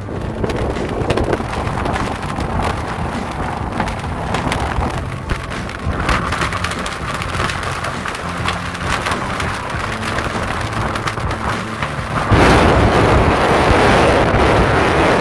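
Strong wind in a mountain blizzard, blowing hard across the microphone. The gusts get louder about twelve seconds in.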